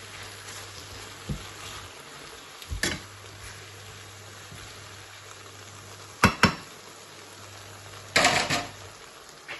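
Stir-fried noodles sizzling faintly in a pan while a utensil knocks and scrapes against the pan: a couple of single knocks, a quick double clack about two-thirds of the way in, and a longer clattering scrape near the end.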